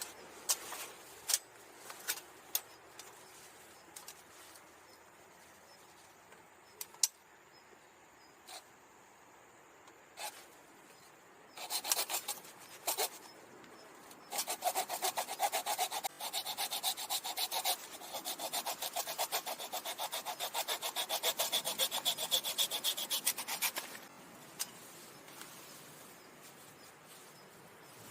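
Small handsaw cutting through a piece of firewood, with quick, even back-and-forth strokes for about ten seconds in the middle, after a short first burst of sawing and some light knocks of wood being handled.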